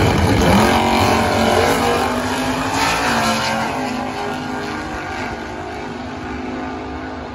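Two drag-racing vehicles, a compact pickup and a vintage sedan, launch hard side by side and accelerate down the strip. The engine note climbs in pitch, then fades as they pull away.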